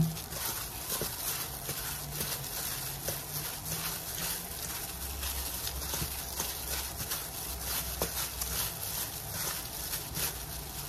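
A gloved hand tossing seasoned radish strips and raw oysters in a stainless steel bowl by hand: irregular wet squishing with the rustle of a thin plastic glove.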